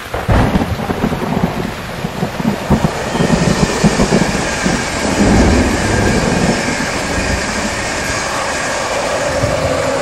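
A locomotive-hauled passenger train passing close by on electrified track: the sound jumps up suddenly as the locomotive arrives, then a heavy rumble and irregular clatter of wheels on the rails as the coaches go by, easing toward the end, under a steady hiss.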